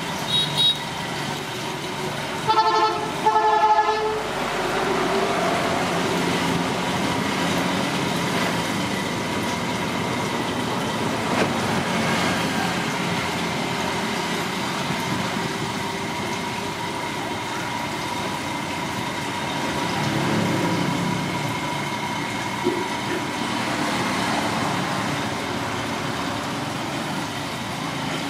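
Steady background noise of street traffic, with two short toots of a horn about three seconds in.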